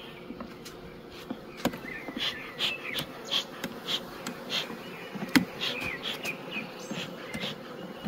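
Honeybees humming steadily around an open hive, with a run of short soft puffs from a bee smoker's bellows through the middle of the stretch. A few sharp clicks, the hive tool against the wooden frames.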